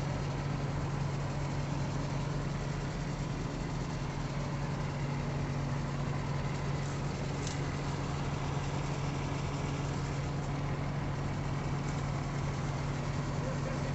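Large engine of sugarcane harvesting machinery running steadily: an even, low drone.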